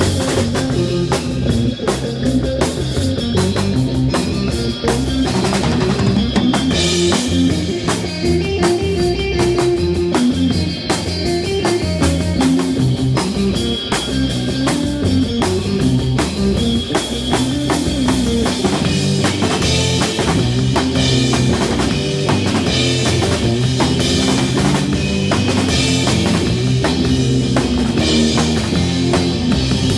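Live instrumental rock band playing: drum kit, electric bass and electric guitar, with dense, steady drumming.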